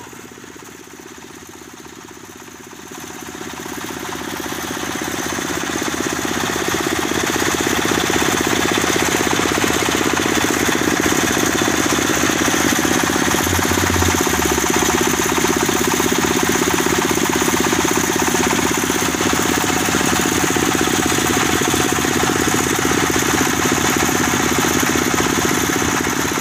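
Single-cylinder horizontal diesel engine belt-driving a generator, speeding up over the first few seconds from a lower idle to a steady fast run with a rapid, even beat.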